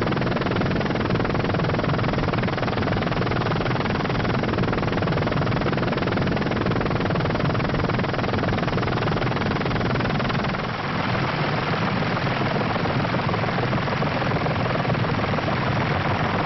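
Steady helicopter engine and rotor noise, with a brief dip about ten seconds in.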